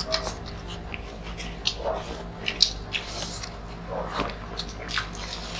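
Close-miked eating sounds: several people chewing mouthfuls of grilled chicken, rice and lettuce, with scattered short wet clicks and smacks at an irregular pace.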